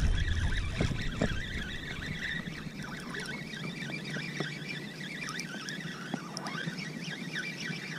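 Spinning reel's drag buzzing in short, wavering runs as a hooked fish pulls line against the bent rod. Wind rumbles on the microphone in the first second or so.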